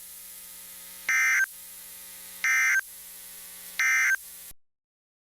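EAS end-of-message signal on NOAA Weather Radio: three short, loud bursts of buzzy digital data tones, about a second apart, marking the end of the test broadcast. A faint steady background hum from the broadcast runs between the bursts and cuts off suddenly after the third.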